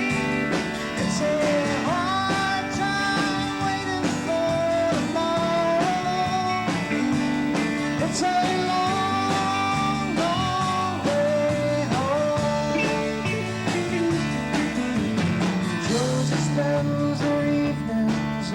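Live band playing a country-rock song, with guitar and singing over a steady beat.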